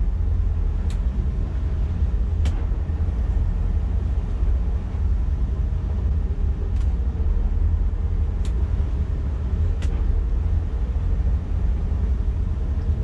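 Twin MerCruiser 7.4 L big-block V8 inboard engines running at low speed in gear, a steady deep rumble. A few sharp clicks are scattered through it.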